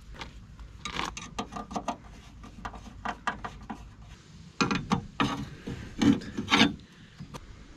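Screwdrivers and small fastener hardware scraping and clicking against a Rover mower's steel deck while a screw is fitted with washers, with a run of louder scrapes in the second half.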